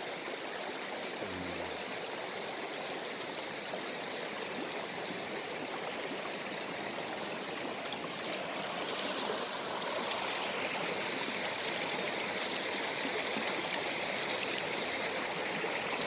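Mountain stream running over rocks, a steady rushing flow swollen by the previous day's rain, growing a little louder about two-thirds of the way through.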